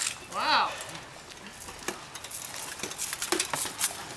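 Light, scattered clicks and clinks from armoured fighters' gear moving during rattan sparring practice. A short vocal call comes about half a second in.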